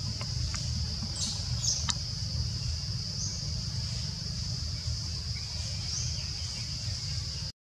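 Steady high-pitched insect drone of tropical forest ambience over a low rumble. A few faint clicks and short bird chirps come in the first two seconds, with more chirps around three and six seconds in. The sound cuts off abruptly near the end.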